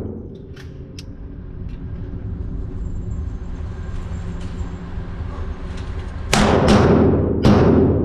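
9mm semi-automatic pistol fired in a quick string near the end, about three shots roughly half a second apart. A few faint sharp clicks come early, over a steady low hum.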